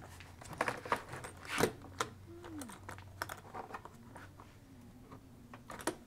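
Irregular plastic clicks and knocks as a scooter's plastic top trunk is slid onto its mounting base.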